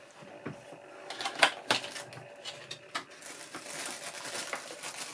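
Clear plastic packaging tray and plastic bag being handled and pulled apart: scattered clicks and crackles, with two sharp clicks about a second and a half in, then denser crinkling near the end.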